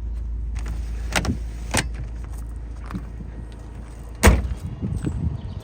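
Boot of a Volkswagen Passat estate being handled: a few sharp clicks and knocks, then one loud thump about four seconds in, with a low steady rumble that drops away after the thump.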